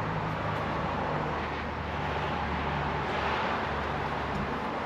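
A vehicle engine running steadily at a low idle, with a steady rushing background noise.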